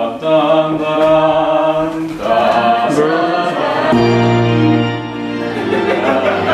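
Live music made of a few long held notes, each lasting a second or two, with a slide in pitch about three seconds in and a fuller, deeper chord after that.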